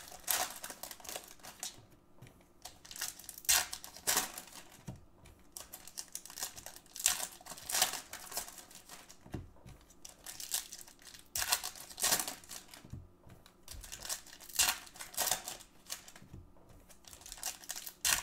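Foil wrappers of 2018 Topps Gold Label baseball card packs crinkling and tearing as they are ripped open and handled, in a string of short, irregular crackly bursts.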